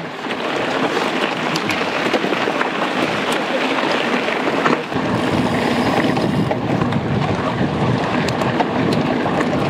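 Wind buffeting an onboard action camera's microphone over the rushing of mountain-bike tyres on a dirt trail, with scattered small clicks. The rushing grows heavier about five seconds in.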